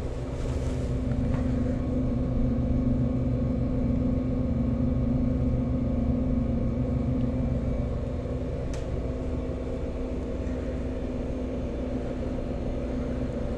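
Soda vending machine's refrigeration unit humming steadily, a low, even mains-pitched drone.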